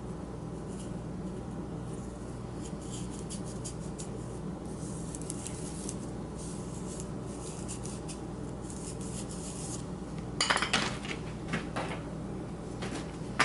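A wooden dowel rod being worked out of a stiff, baked curl of grosgrain ribbon, a faint scratchy rubbing, then a quick cluster of sharp hard clacks about ten seconds in, the loudest sounds, over a low steady hum.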